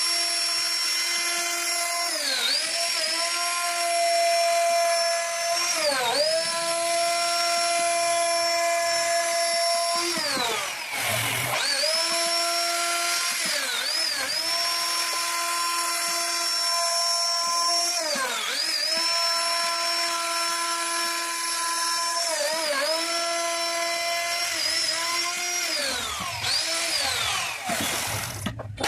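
CNC router spindle whining steadily as it cuts a carved design into wood. Every few seconds its pitch dips briefly and climbs back.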